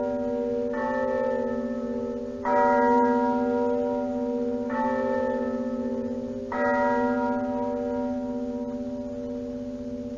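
Church bells chiming four slow strokes of different notes, about one every two seconds, each left ringing: the quarter chimes before the clock strikes the hour.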